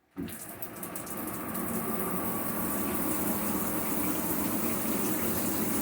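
Shower water turned on suddenly and pouring steadily from a newly installed rain shower head and handheld sprayer combo, rising a little over the first couple of seconds and then holding steady.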